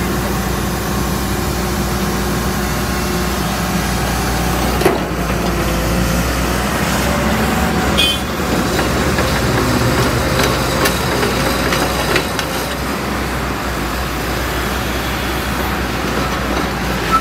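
JCB NXT 215LC crawler excavator's diesel engine running steadily as the machine moves off its transport trailer, with a few faint knocks.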